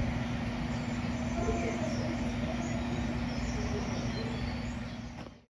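Steady low mechanical hum holding one constant tone, with faint voices in the background; it fades and cuts off abruptly at the very end.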